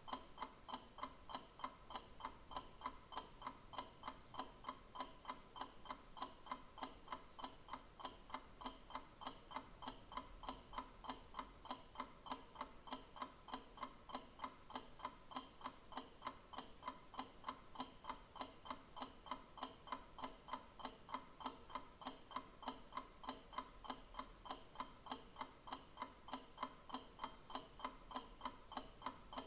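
Clock ticking: a steady, even run of sharp ticks, several a second, that does not change.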